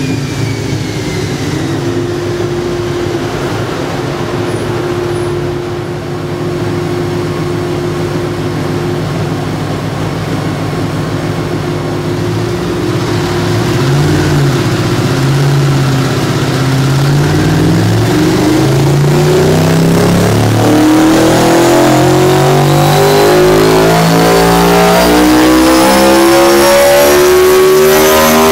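Aprilia RSV4 Factory's 65-degree V4 engine breathing through a Leo Vince slip-on exhaust, running on a dyno. It holds a steady speed at first, then about halfway through the revs climb steadily and grow louder in a dyno power run.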